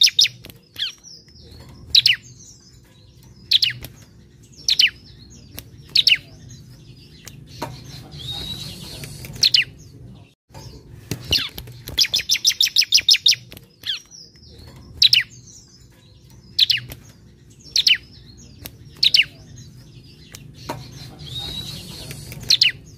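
Bar-winged prinia (ciblek) calling: a rapid run of about ten sharp, high chip notes, then single sharp notes a second or so apart, then a short buzzy, scratchy phrase. The sequence plays twice.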